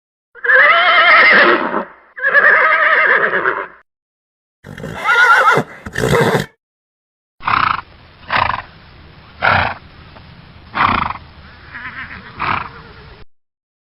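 Horses neighing: two long, wavering whinnies, then a shorter whinny ending in a brief noisy burst. After a pause comes a run of about five short calls roughly a second apart over a steady background hiss.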